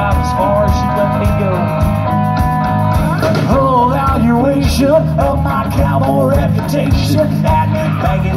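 Live rock band playing amplified: electric guitars, bass and a drum kit with a steady beat, and a voice singing the melody from about three seconds in.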